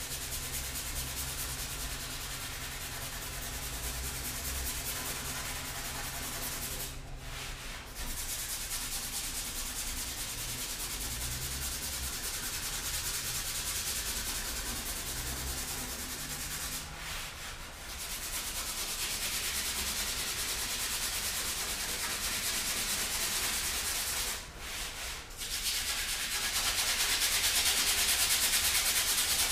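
60-grit abrasive sanding a Land Rover bonnet panel: a continuous scratchy scuffing that roughs up the metal so body filler will key to it. It stops briefly three times and gets louder near the end.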